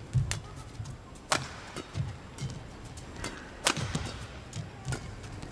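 Badminton rally: sharp cracks of rackets striking the shuttlecock, a second or two apart, over low thuds of players' feet landing and lunging on the court.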